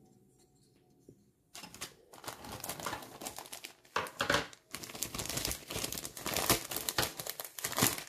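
Clear plastic bag crinkling as the plastic model kit sprues inside it are handled. It is quiet for the first second and a half, then comes an irregular run of crackling with several louder bursts.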